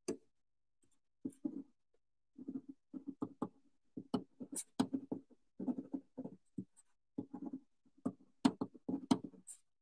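Pen writing by hand on a paper label: short scratchy strokes of handwriting in quick clusters, starting about a second in.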